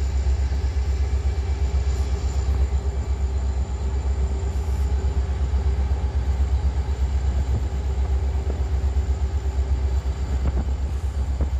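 Norfolk Southern AC44C6M diesel-electric locomotive, a Dash 9 rebuilt from DC to AC traction, running at speed alongside, heard from a vehicle pacing the train. A steady heavy low rumble with a faint steady hum over it.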